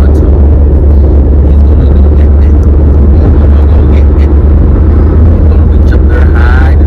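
Steady low rumble of road and engine noise inside a moving car's cabin, with a brief high wavering sound near the end.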